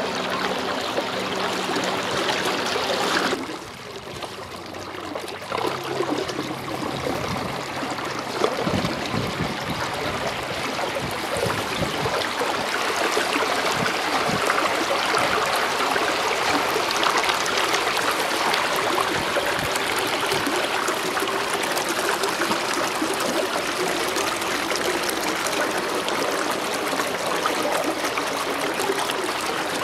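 Steady rushing, trickling water against the hull of a moving canoe. A low steady hum sounds for the first three seconds, then cuts off.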